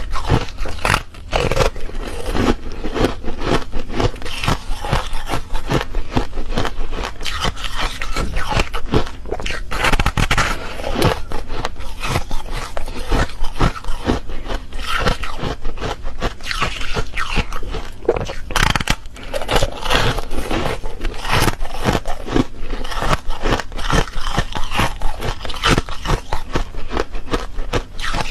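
Refrozen foam ice crunching and crackling as it is chewed close to the microphone: a dense, continuous run of small crackles and scrapes.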